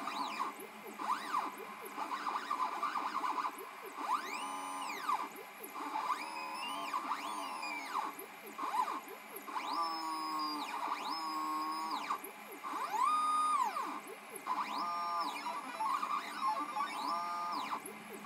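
Stepper motors of a DIY Arduino/GRBL CNC pen plotter whining as the machine draws, the pitch rising, holding and falling again with each move as the axes speed up and slow down. The moves come in quick succession, some with two motors sounding at once.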